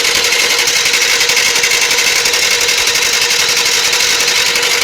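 Electric starter cranking a D-260 six-cylinder diesel for a compression test, with compression gauges screwed in where the injectors go: a loud, fast, even churn of compression strokes over a steady whine.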